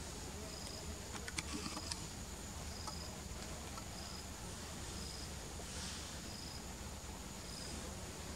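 Forest insects: a steady high buzz with a short high chirp repeating about once a second. A few sharp clicks come between one and two seconds in.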